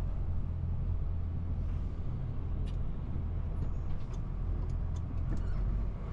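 Diesel truck engine running as the truck moves slowly, a steady low rumble heard from inside the cab, with a few faint light clicks in the second half.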